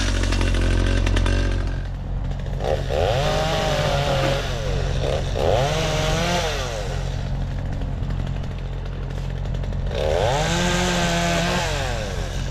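A chainsaw is revved up and let back down three times, each rise lasting a second or so, over the steady running of a heavier engine.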